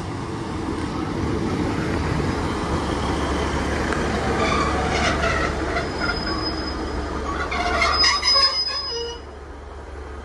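Class 150 Sprinter diesel multiple unit running into the platform and braking to a stop, its diesel engine humming under a rising rumble, with squealing about four and a half seconds in and again, louder, near eight seconds. The sound drops off sharply about nine seconds in as the train comes to a halt.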